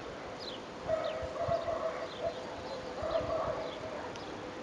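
Birds calling: short, high, falling chirps repeat several times a second, and a longer, lower call sounds twice, about a second in and again about three seconds in.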